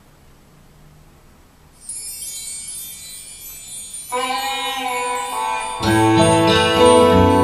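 A recorded song's instrumental intro played through single-ended 838 valve amplifiers. Faint hiss gives way about two seconds in to high ringing notes like chimes. Mid-range notes join at about four seconds and bass at about six, building up the sound.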